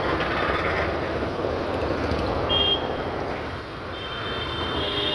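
Busy street traffic heard from a moving scooter: steady engine and road noise from the scooter and the motorbikes around it, with a short high horn beep about two and a half seconds in and a longer one near the end.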